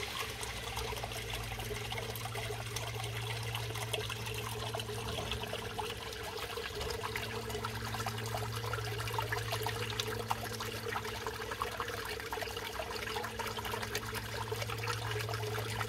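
Water steadily splashing and trickling into a garden fish pond from an inflow, with a steady low hum underneath.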